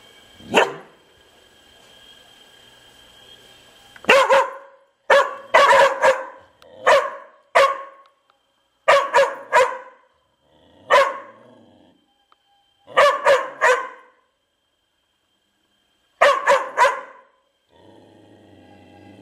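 A big black dog barking: one bark about half a second in, then about twenty loud barks in clusters of two to four over the following thirteen seconds.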